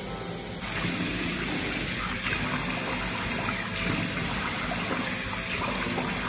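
Tap water gushing into a sink and splashing as hands rinse face wash off a face. It gets louder about half a second in.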